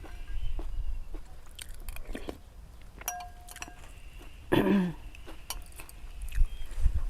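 A person eating noodle soup close to the microphone: chewing and utensils clinking against the bowl, with a brief ringing clink about three seconds in and a louder, short mouth sound about four and a half seconds in.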